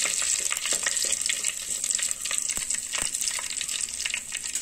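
Curry leaves, dried red chillies and mustard seeds sizzling and crackling in hot oil in a clay pot, a steady spattering hiss that eases off slightly.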